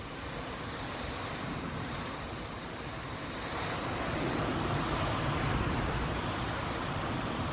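Typhoon-force wind blowing past a building, heard from inside it as a steady rushing noise. The gusts grow louder about halfway through.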